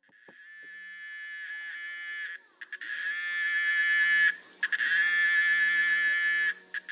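An insect buzzing in long, drawn-out stretches, high-pitched and fading in at the start, with short breaks about two and a half, four and a half and six and a half seconds in.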